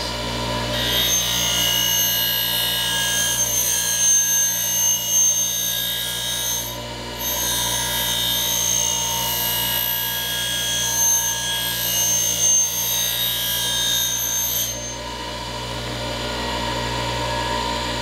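Small 3600 RPM bench grinder running steadily while the steel edge of an adze is held against its fine deburring wheel. The high grinding hiss starts about a second in, breaks off briefly near the middle, and stops a few seconds before the end when the tool is lifted away, leaving the motor hum. The grinding is raising a burr along the edge.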